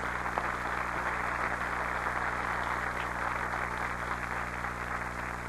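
Audience applauding steadily, with a low mains hum running underneath.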